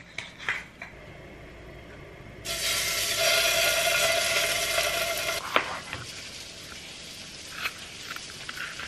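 Food sizzling in hot oil in a frying pan, a loud hiss for about three seconds that starts and stops abruptly. A knock follows, then a knife cutting a red bell pepper on a cutting board, with a few light taps near the end.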